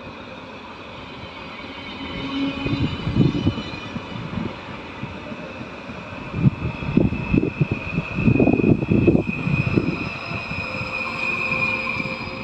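PKP Intercity Stadler FLIRT electric multiple unit rolling past close by. Its wheels thud irregularly over the rails, growing louder from about halfway through, under a steady high whine.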